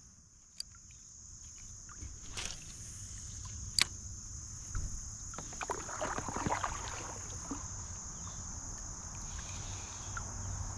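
A kayak moving on the water: a few sharp knocks on the hull, then water splashing and sloshing about halfway through. A steady high insect chorus runs underneath.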